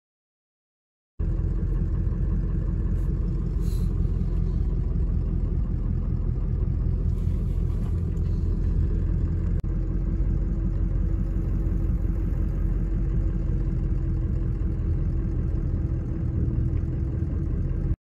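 Steady low rumble inside a vehicle cab in a windstorm of up to 120 km/h, the wind buffeting the vehicle, with a steady hum under it. It starts suddenly about a second in.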